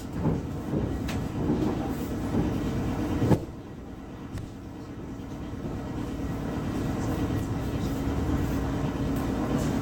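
ER9M electric train running on the rails: a steady rumble with a few sharp knocks of the wheels over rail joints in the first three seconds. The sound drops suddenly a little over three seconds in, then slowly grows louder again.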